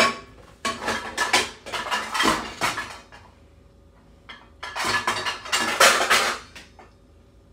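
Pots, pans and other clutter clattering and clanking as a cupboard is rummaged through to pull out a wok, in two bouts, the second starting about four and a half seconds in.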